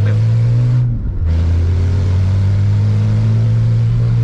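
Pickup truck's engine and exhaust droning loudly, heard from inside the cab, with a failed muffler. About a second in the sound briefly breaks, then it holds steady again.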